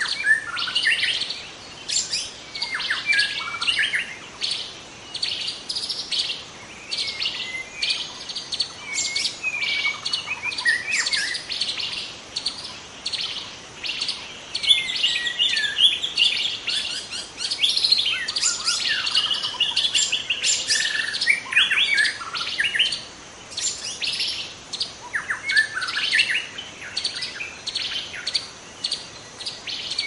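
Many wild birds chirping and calling at once, a dense chorus of short rapid chirps, trills and quick down-sweeping whistles that overlap without a break.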